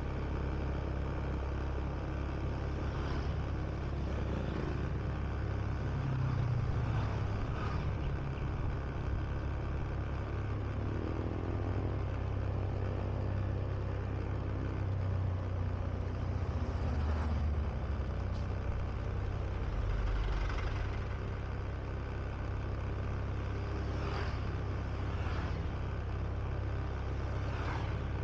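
Honda Beat scooter on the move: steady engine running under a heavy low rumble of riding wind on the body-worn camera's microphone. The engine pitch rises about midway as it speeds up.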